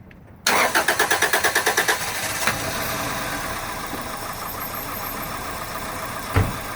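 A 2001 Toyota Corolla's 1.8-litre four-cylinder engine cranks briefly with a rhythmic starter chug, catches and settles into a shaky idle. The idle is rough from a misfire on cylinder 3, which the mechanic puts down to the spark plug. A single thump near the end.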